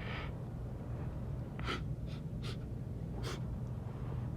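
A man's short, sharp gasping breaths between sneezes, about four quick intakes, as another sneeze builds up. A steady low hum runs underneath.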